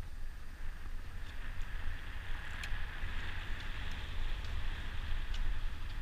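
Wind buffeting the microphone of a camera riding on a bicycle during a downhill descent, with a steady hiss that swells from about two seconds in and a few faint clicks.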